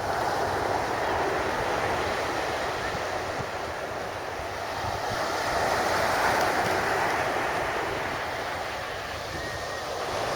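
Sea waves breaking and washing on the shore, with wind buffeting the microphone; the surf swells about halfway through and eases off again towards the end.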